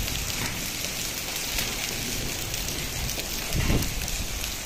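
Steady rain shower falling, a hiss of drops with scattered sharp ticks of individual drops striking. A brief low rumble comes about three and a half seconds in.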